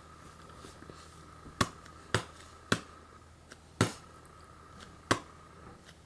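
Five sharp clicks or taps at uneven intervals, over a faint steady high-pitched hum.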